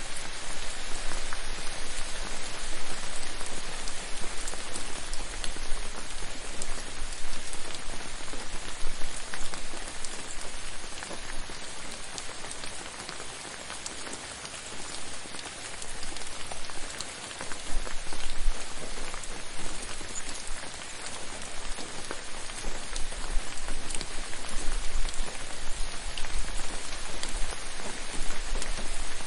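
Steady rain falling and pattering on a surface, a dense hiss of many drops with fine individual ticks, easing slightly midway and building again.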